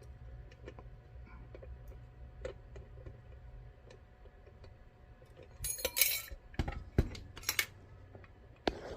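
Small metallic clicks and clinks of lock-picking tools and a Mul-T-Lock MT5+ lock being handled just after the lock is picked open. A short burst of clattering comes about six seconds in, followed by a few sharper single clicks.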